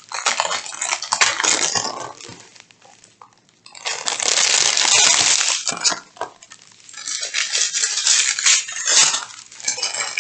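Small plastic bags of round resin diamond-painting drills being handled, the drills clinking and rattling against each other under the crinkle of the bags, in three spells of a couple of seconds each.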